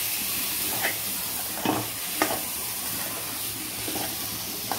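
Soaked rice and green peas frying in ghee in a steel pot, sizzling steadily as a spatula stirs it, with a few short scrapes of the spatula against the pot.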